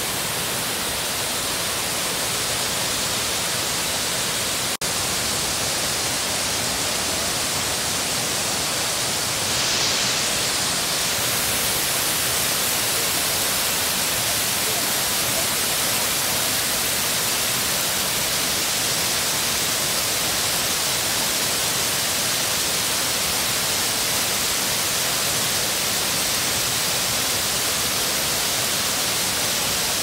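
Kapuzbaşı waterfall pouring: a steady, loud rush of falling water, broken by a momentary dropout about five seconds in.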